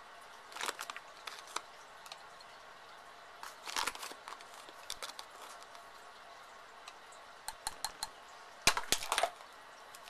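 Tablespoons of rice flour being scooped from a plastic bag and tipped into a ceramic mug: the bag crinkles and the spoon clicks against the mug, in a few short bursts of clicks and rustles.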